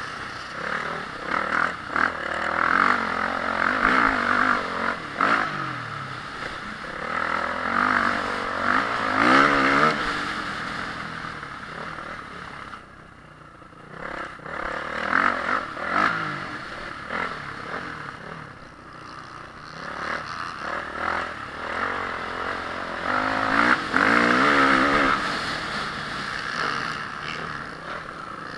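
Honda CRF450R's 450 cc single-cylinder four-stroke motocross engine revving up and down again and again as the throttle is opened and shut, with a short lull about halfway through where the revs drop off, and some clatter from the bike.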